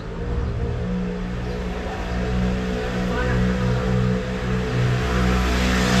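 A motor vehicle's engine running with a low, steady note, growing louder as it draws near.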